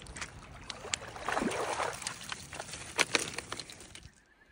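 Water splashing and sloshing as a schipperke swims and paddles through a shallow river with a stick in its mouth. The splashing swells about a second in, has sharp splashes around three seconds in, and drops away suddenly near the end.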